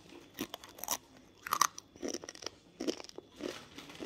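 A child biting and chewing dry, uncooked instant noodles, with irregular crunches, the sharpest about one and a half seconds in.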